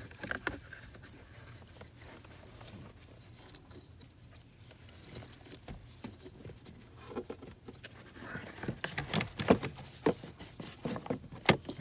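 Plastic car interior trim panel being handled and fitted into place, giving scattered light clicks and knocks. They come more often in the last few seconds, with one sharper knock about nine and a half seconds in.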